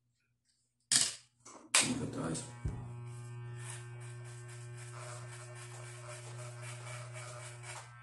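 Two sharp knocks about a second in, then electric hair clippers start and run with a steady buzz while cutting hair.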